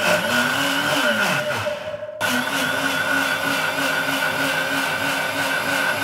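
Electric mixer-grinder running with its steel jar, pureeing boiled tomatoes. The motor whine speeds up at the start and slows within the first two seconds, breaks off briefly about two seconds in, then runs on steadily.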